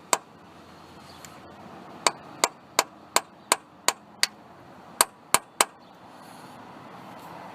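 Hammer tapping a centre punch on a broken stud to mark its centre for drilling out: sharp metallic taps, one just after the start, then a run of seven at about three a second, then three more in quick succession.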